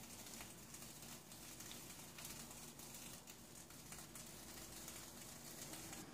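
Near silence: a faint hiss with scattered soft ticks from a lidded stainless saucepan of water and spices heating on an electric coil burner, not yet boiling.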